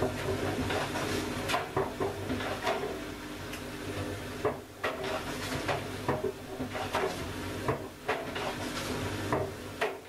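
Front-loading washing machine running, its drum turning with a steady motor hum, while a Nokia 3310 mobile phone tumbles inside and knocks irregularly against the drum, about once or twice a second.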